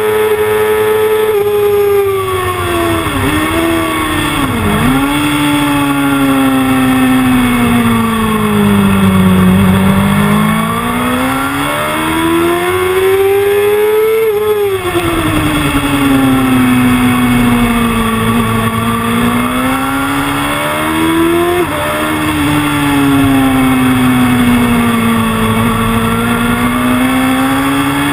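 Sport motorcycle engine at full track pace, heard from on board: the revs fall under braking with two quick dips in the first few seconds, then climb hard. The pitch drops sharply at an upshift about halfway through, climbs again and drops at a second upshift about three-quarters in.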